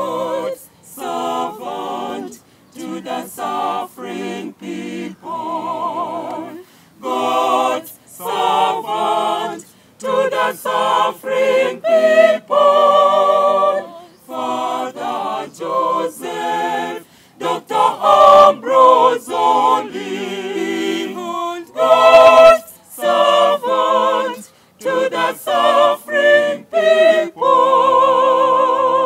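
A choir singing unaccompanied, in short phrases broken by brief pauses, holding a long note near the end.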